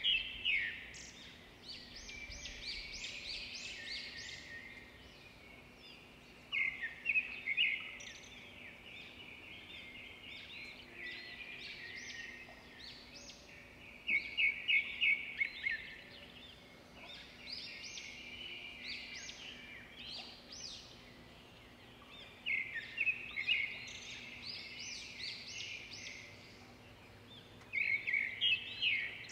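A songbird singing the same kind of phrase over and over, roughly every six to eight seconds; each phrase opens with a loud run of rapid high chirps and then trails off into softer notes.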